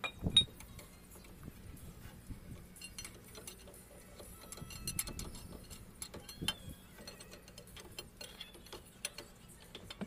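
Scattered metallic clicks and clinks of a long socket wrench working a bolt on a Mercedes Actros truck's power steering box, with one sharp metal knock about a third of a second in.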